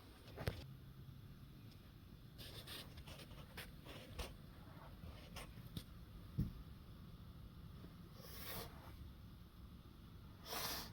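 Faint handling noise: scattered light clicks and knocks, with two short rustling swishes about eight seconds in and near the end.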